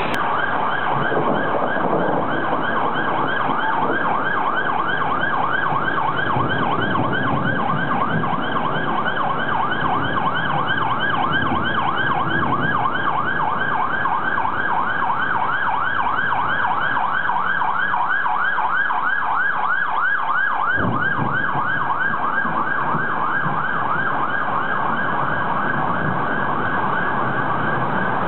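Fire engine siren sounding a fast, repeating rising yelp that stops right at the end, over the steady hiss of heavy rain and running floodwater.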